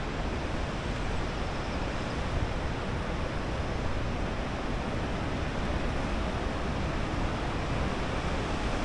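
Steady rushing noise with an uneven low rumble and no separate events.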